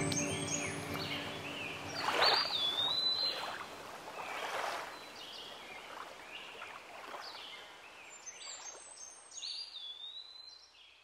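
Ambient sound bed of scattered high chirping calls that glide in pitch, over a soft hiss, fading out to silence near the end.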